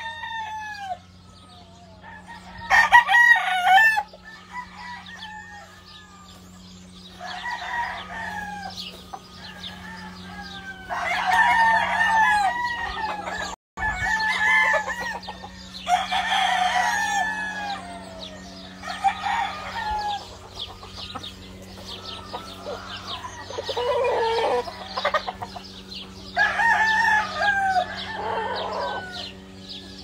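Game roosters crowing one after another, about nine crows of a second or two each, the loudest about three seconds in, over a faint steady low hum.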